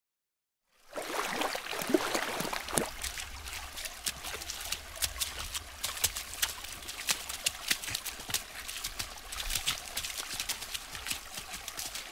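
Water rushing and splashing. It starts suddenly about a second in with a gush, then runs on as a steady splashing with many small crackling droplets.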